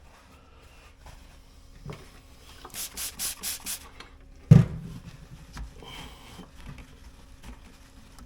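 About six quick scrubbing strokes on refrigerator condenser parts, a brush or rag working off dust, followed by a single sharp knock.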